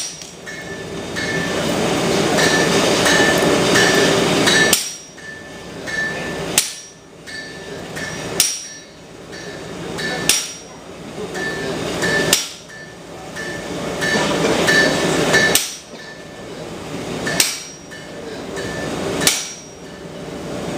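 Hammer blows on red-hot steel over an anvil: a steady run of light, ringing strikes, with a sharper strike about every two seconds.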